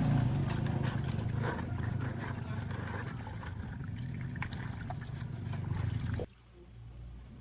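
An engine running steadily with a low hum and scattered light clicks, cutting off abruptly about six seconds in.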